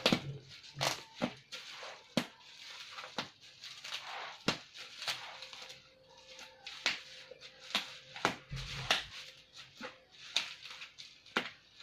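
Bubble wrap and packing tape being pulled and torn at by hand: irregular crinkling with frequent sharp snaps and crackles.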